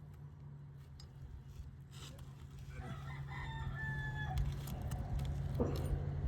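A rooster crowing once, a long call about three seconds in, over a steady low hum, with a few light clicks and a thump near the end.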